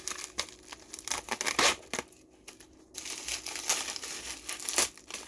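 Packaging being torn open and crinkled by hand while a mailed package is unwrapped, in irregular rustling strokes with a short pause about two seconds in before denser crinkling resumes.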